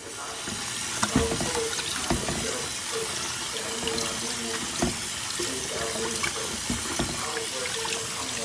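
Tap water running steadily into a metal pot while rice is rinsed in it by hand, with a few sharp knocks against the pot.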